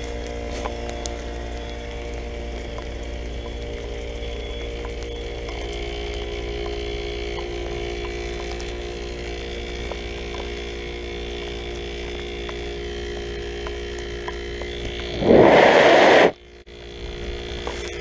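2001 Comfort Range 2-ton heat pump outdoor unit running in its defrost cycle, a steady hum with several held tones. About fifteen seconds in, a loud rubbing noise lasting about a second as water drops are wiped off the camera, then the sound goes briefly muffled.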